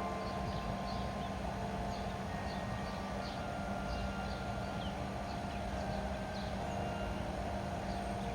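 Church bells ringing, their tones starting one after another and lingering into each other, with small birds chirping throughout and a steady low hum underneath.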